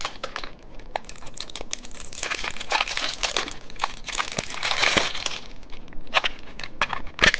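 Candy packaging crinkling and rustling as it is handled and opened, with irregular sharp clicks and crackles; one louder click near the end.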